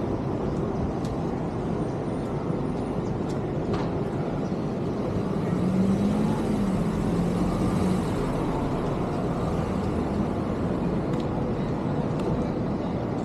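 City street traffic noise: a steady wash of passing cars. About halfway through, a vehicle's engine hum grows louder for a couple of seconds as it goes by.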